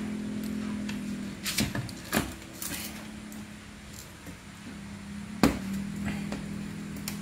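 Old plastic fog lamp cover being pulled off a Toyota Avanza's front bumper, its clips and old adhesive letting go in a series of sharp plastic cracks and clicks, the loudest about five and a half seconds in.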